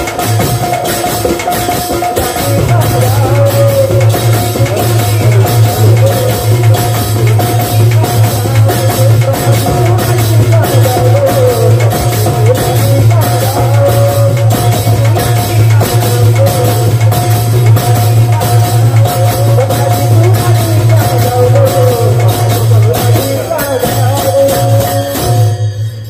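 Kirtan music: hand-beaten barrel drums playing a fast, driving rhythm with small brass hand cymbals ringing and jingling over it, and a voice singing above. The drums come in louder about two and a half seconds in, and the music cuts off just before the end.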